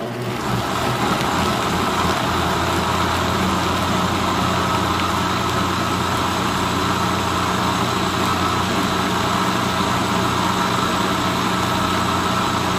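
Countertop blender with a stainless steel jar running at a steady high speed, grinding soaked soybeans and broth into a coarse slurry. It starts suddenly.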